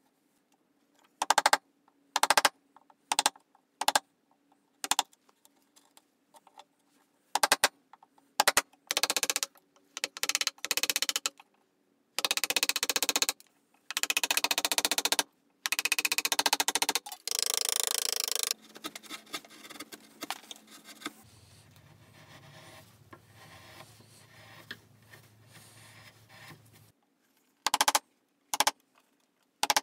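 Bench chisel and carving gouge cutting a birch saw handle: a run of sharp knocks, then a series of longer paring or scraping cuts of about a second each, with more sharp knocks near the end.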